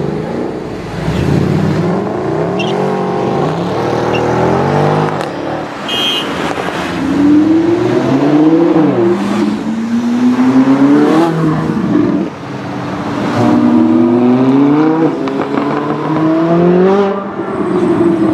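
Performance car engines accelerating hard as cars pull away, a Mercedes-AMG saloon and then a Ferrari 458 Italia. The engine note climbs repeatedly and drops back at each upshift, with the loudest, longest run of rising revs in the second half.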